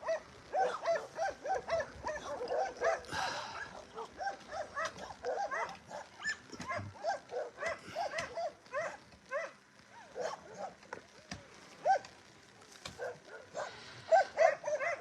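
Dogs barking and yipping, many short calls a few times a second, thinning out after about ten seconds.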